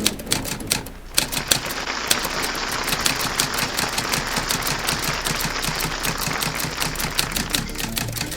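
Typewriter keys clacking in a quick, uneven run of keystrokes. From about two seconds in, a steady hiss sits underneath.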